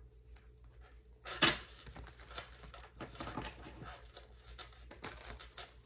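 Faint rustling, scratching and light clicks of objects being handled, with one louder sharp rustle about a second and a half in.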